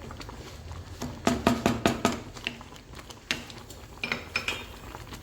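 A utensil stirring a boiling rice, flaxseed and parsley mixture in a saucepan, clinking and knocking against the pot in a quick run of strikes about a second in and again more sparsely later.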